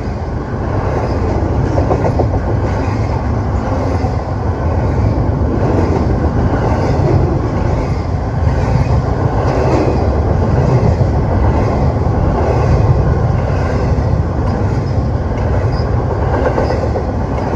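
Norfolk Southern freight train rolling steadily past, a loud, continuous rumble of cars with wheels clacking over the rails.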